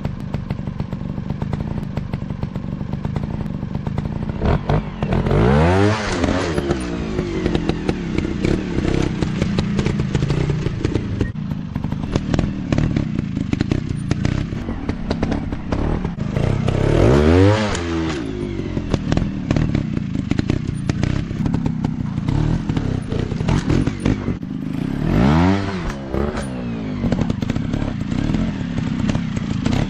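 Dirt bike engines running, with the revs climbing and falling back three times: about five seconds in, around seventeen seconds, and around twenty-five seconds.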